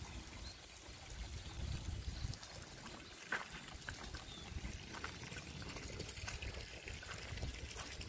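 Faint outdoor ambience of water trickling, with a low steady rumble and a few scattered small clicks.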